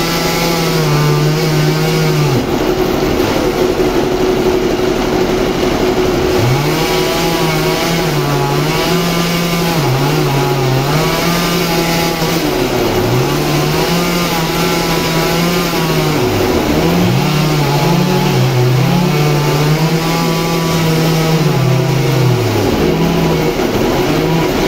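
Two-stroke chainsaw running at full throttle as it cross-cuts a thick suar (rain tree) log. The engine's pitch sags several times as the chain bogs down in the wood, then picks up again.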